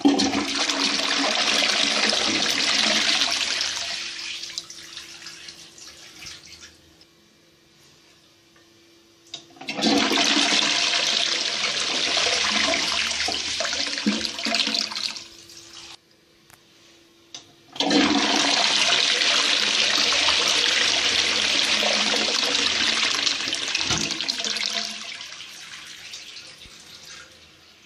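A new 2014 Lecico Atlas toilet flushing three times in a row. Each flush is a loud rush of water lasting several seconds and trailing away, with a short quiet gap before the next.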